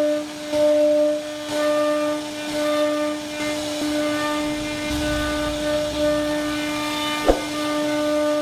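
CNC router spindle running with a steady whine while its bit carves a relief pattern into a wooden panel, the sound swelling and easing as the cut goes on. A sharp click about seven seconds in.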